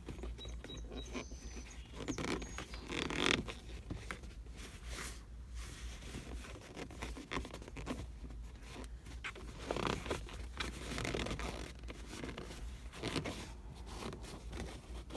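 Suede e-brake boot being pushed and tucked into the car's carpet by hand: irregular rustling and scraping of fabric against carpet and trim, with louder bursts about three seconds in and again around ten seconds.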